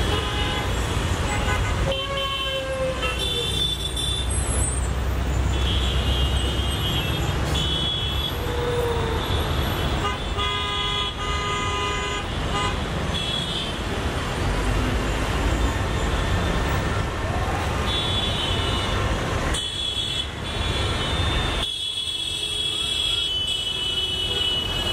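Urban road traffic over a steady low rumble, with vehicle horns tooting again and again in short bursts.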